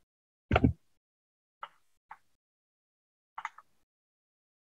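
Dead silence broken by a few brief clicks: the loudest about half a second in, two small ones around the middle, and a quick double click later on.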